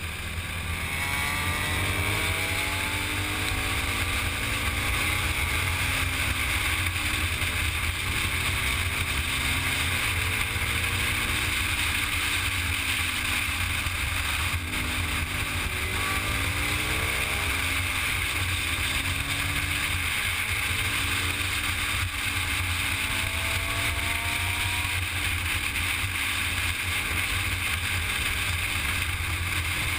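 Motorcycle engine running at road speed, its note rising and falling again and again, under steady wind rush on the microphone.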